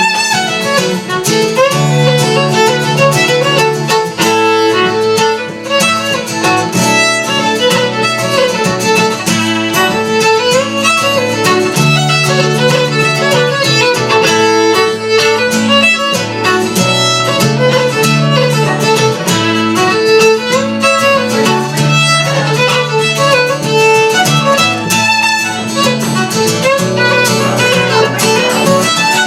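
Fiddle playing a continuous instrumental tune, with guitar accompaniment underneath.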